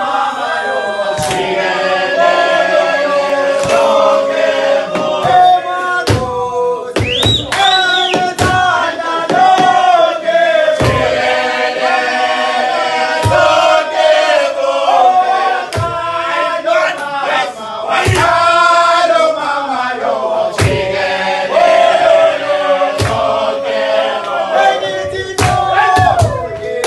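A group of men singing a chant together, many voices in harmony, with loud sharp smacks every second or two.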